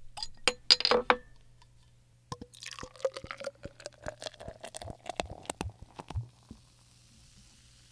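Drink-pouring sound effect: several sharp clinks of glass, then liquid poured into a glass for about four seconds, its pitch rising slowly as the glass fills, with a few more clinks along the way.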